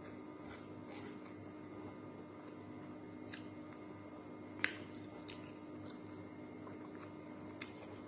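Faint chewing and fingers picking apart crispy fried galunggong (round scad), with small scattered crackles and one sharper click about halfway through.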